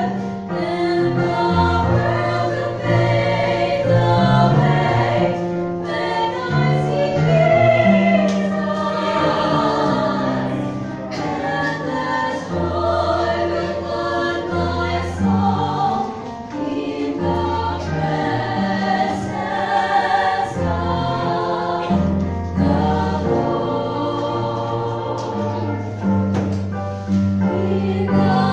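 A small group of women singing a Christian worship song together in harmony, over long-held low accompaniment notes.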